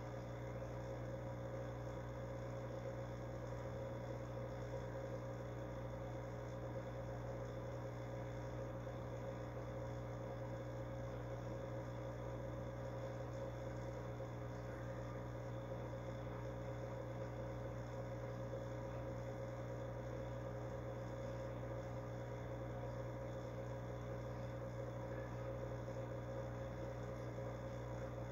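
Steady electrical hum from the running fish-tank equipment: a low drone with fainter higher tones above it, unchanging throughout.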